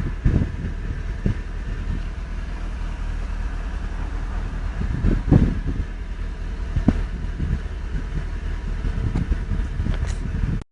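Car engine running steadily, with scattered knocks and bumps, the loudest about five seconds in.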